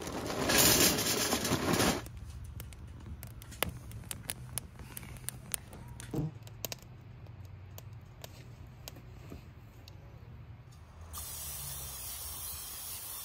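Fuel poured out of a paper bag into a steel cylinder stove, a loud rattling pour for about two seconds. Then the fire in the small stove crackles with scattered sharp pops. Near the end a cooking-spray can hisses steadily into a metal pan for about two seconds.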